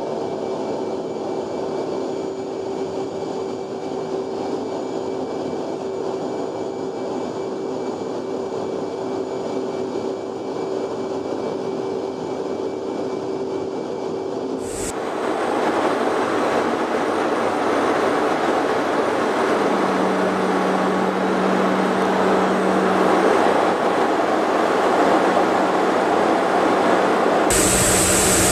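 Steady rushing noise of airflow and jet engines inside an F/A-18 Hornet's cockpit in flight, with a steady hum running through it. About halfway through it turns abruptly louder and fuller, and it changes abruptly again near the end.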